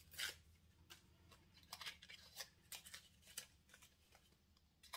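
Faint rustling and small crackles of paper as a small paper-wrapped gift is unwrapped by hand, in scattered short bursts.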